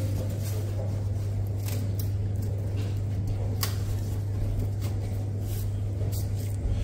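Steady low hum, with a few faint clicks and rubs as gloved hands press a copper pipe into its fitting inside a combi boiler.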